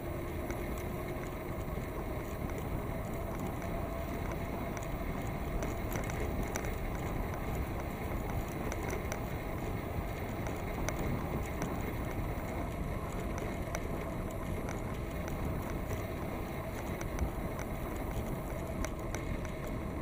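Steady wind noise on the microphone and bicycle tyres rolling on pavement while riding, with a few faint ticks.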